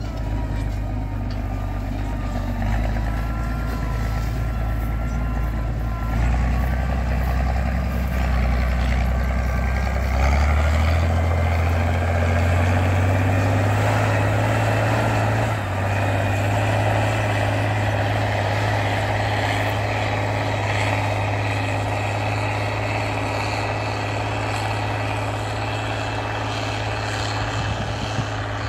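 The turbo diesel engine of an IMT 5136 Turbo tractor running under load while pulling a disc harrow. Its deep note rises in pitch about ten seconds in, then holds steady.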